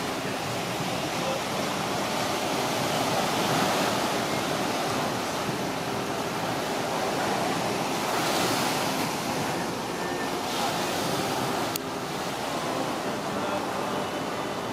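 Small sea waves washing onto a sandy beach, a steady rush that swells and eases, with wind on the microphone.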